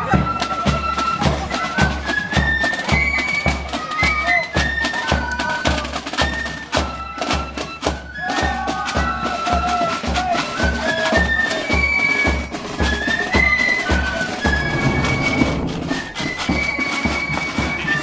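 Marching band going past: a bass drum beating steadily about twice a second under a high melody played on wind instruments.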